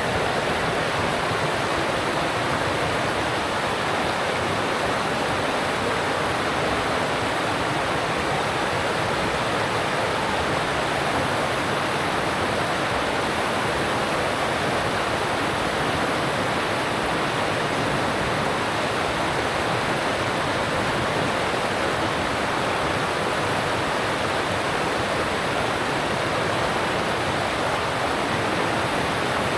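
Alpine stream rushing over rocks: a steady, unbroken rush of water.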